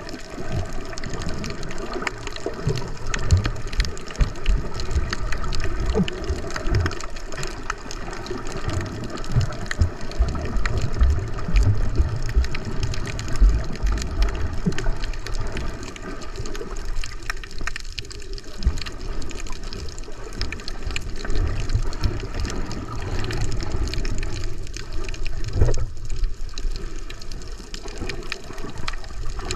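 Muffled water noise recorded underwater while snorkelling: water rushing and sloshing over the microphone in low, uneven swells, with many small scattered clicks and crackles.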